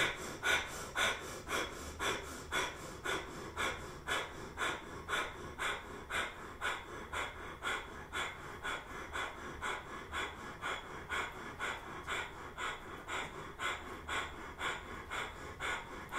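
Breath of fire: rapid, rhythmic breathing in and out through the nose, driven by pumping the navel, at an even pace of about two to three breaths a second.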